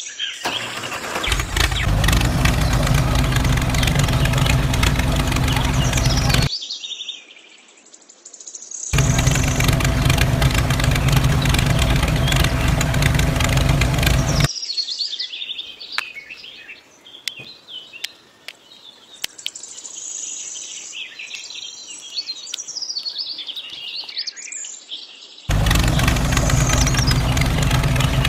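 Tractor engine running steadily, cut off abruptly twice and starting again. In the quieter gaps between, birds chirp.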